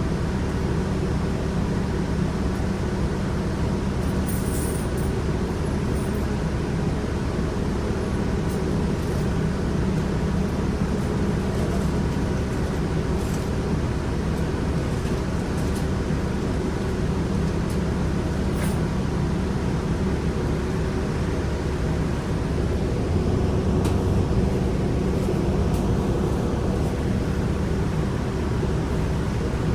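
Inside a New Flyer D40LF diesel city bus under way: a steady drivetrain drone with road noise and a few light rattles. The drone's pitch shifts about three-quarters of the way through. The uploader calls this bus's transmission bad.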